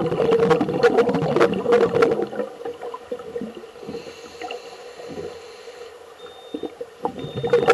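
Exhaled air bubbling out of a scuba diver's regulator, heard underwater as a loud gurgling rumble with crackling pops. It dies away after about two and a half seconds, and a fresh exhalation starts near the end.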